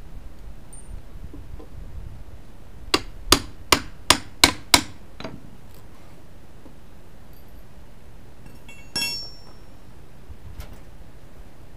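Claw hammer tapping a small pry bar six times in quick succession, metal on metal with a ringing edge, to drive the bar's claw under a nail head that is sunk into the wood. A single ringing metallic clink follows a few seconds later.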